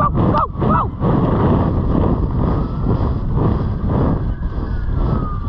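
Wind buffeting the microphone of a rider's helmet camera while a horse gallops through arena sand, its hoofbeats thudding underneath the wind.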